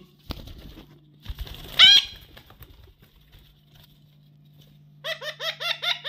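Pet parakeets calling: one loud, harsh squawk with falling pitch about two seconds in, then a quick run of about seven short falling squawks near the end. A steady low hum sits underneath.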